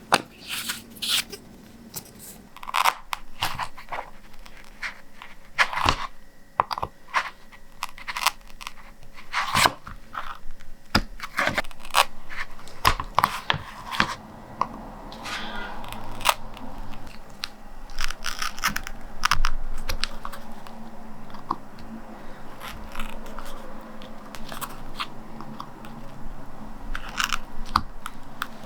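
Printmaking supplies being handled while setting up for inking: irregular taps, clicks, scrapes and rustles of tools and materials set down and moved on a work table.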